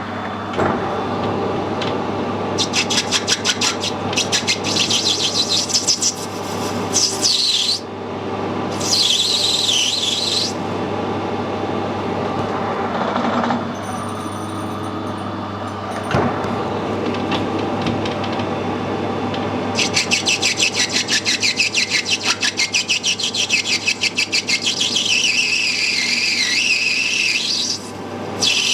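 Metal lathe running steadily while the cutting tool works on a brass union, with several stretches of high, rapidly pulsing squeal from the tool chattering in the cut.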